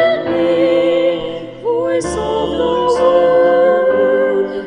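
A sung television station theme song with instrumental accompaniment. The voice holds long notes over the backing, with a short dip about one and a half seconds in and a brief break near the end.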